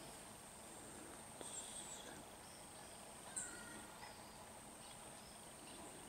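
Quiet outdoor ambience: a steady high-pitched insect buzz, with a few faint short chirps over it.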